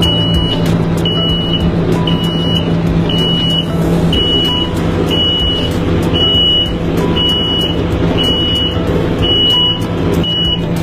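Warning beeper of an automatic wheelchair securement station, sounding short high beeps about once a second while its arm swings in beside the wheelchair, over a steady low hum.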